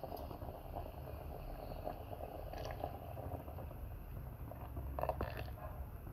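Thick coconut curry bubbling in an earthenware pot over a lowered flame while buttermilk is poured in, with a few light clicks about two and a half and five seconds in.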